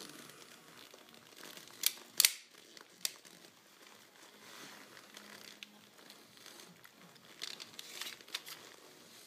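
Handling noise: leather clothing rustling, with a few sharp clicks, a loud pair about two seconds in, another a second later and a quick cluster near the end.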